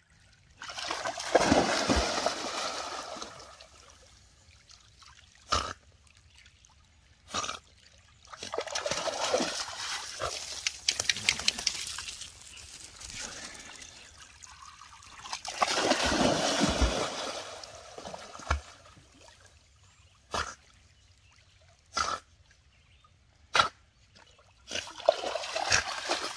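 Dog splashing in shallow lake water, in three or four bouts lasting one to three seconds each. Several short, sharp knocks fall between the bouts.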